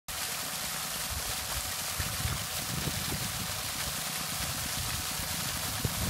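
Water gushing hard from a solar-powered 1,500-watt pump's 2-inch outlet and splashing into a pond, a steady rushing noise.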